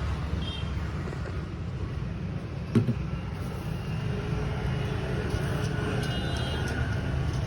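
Steady low rumble of a moving vehicle, with one sharp knock a little under three seconds in.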